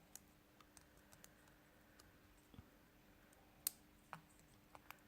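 Faint, scattered small clicks of tweezers and parts as the old rear camera module of a Samsung Galaxy Note 5 is unclipped and lifted out. The sharpest click comes a little past the middle.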